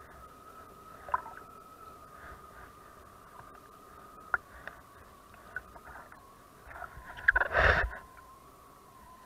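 Lake water splashing and lapping around a person floating in a survival suit, in small scattered splashes with one louder splash about seven and a half seconds in. A faint steady whine sits underneath.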